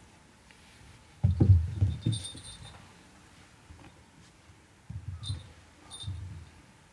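Soft thuds of a cat pouncing on a carpeted floor and batting a small toy ball, loudest about a second in and again near five and six seconds. Short high tinkling rings come with them three times as the toy is knocked about.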